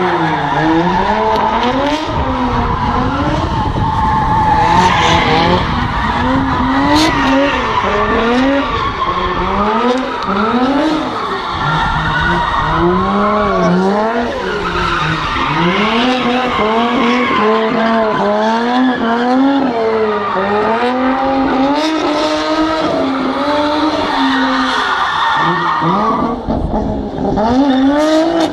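Drift cars sliding sideways, their engines revving up and down over and over, the pitch rising and falling every second or two, while the tyres skid and squeal.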